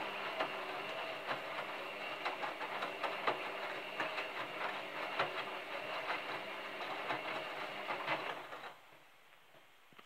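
Front-loading washing machine turning its drum during the wash: a steady motor hum with water sloshing and the wet load tumbling in irregular clicks and splashes. The drum stops about eight and a half seconds in, and the sound drops away to a faint background.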